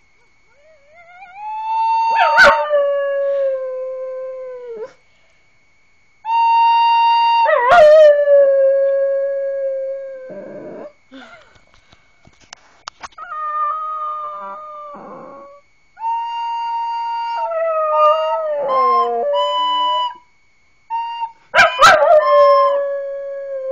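A recorder playing long held notes in several phrases with short pauses between them, and a dog howling along, her howls wavering and sliding in pitch over the notes.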